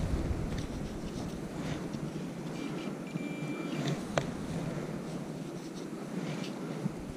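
Handheld metal detector pinpointer giving a brief steady high tone about three seconds in, signalling metal in the sand, with a sharp click about a second later.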